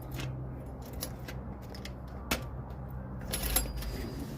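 Key working the newly fitted lock barrel of an aluminium sliding door: a few sharp metallic clicks and rattles, the loudest cluster near the end.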